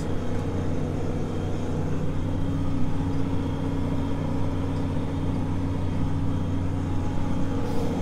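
John Deere 4240 tractor's six-cylinder diesel engine running steadily under load, heard from inside the cab while it pulls a three-point roller crimper through rye at a slow field speed.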